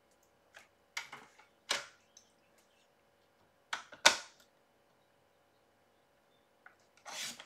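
Paper trimmer being handled: paper laid on the base and the clear cutting arm lowered over it, with a few soft taps and rustles and one sharp click about four seconds in.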